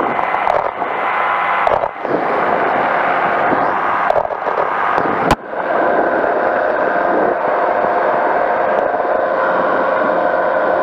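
Powered parachute's engine and propeller droning in flight, with wind buffeting the microphone. A sharp click comes a little over five seconds in, after which the drone runs steady and even.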